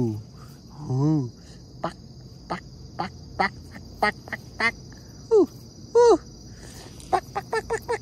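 Duck quacking in short calls spaced about half a second apart, with two falling quacks past the middle and a fast run of about four quacks a second near the end, over a steady high insect drone. Two drawn-out low vocal sounds come at the very start.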